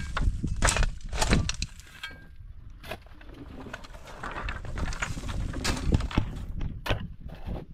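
Metal shovel biting into stony soil, with loud scraping and clattering of stones in the first second and a half. A few sharp wooden knocks follow later, as thin wooden slats are handled.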